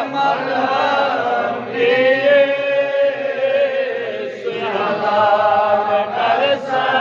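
A man's voice chanting in a melodic, sermon-like delivery, holding long wavering notes with short breaks between phrases.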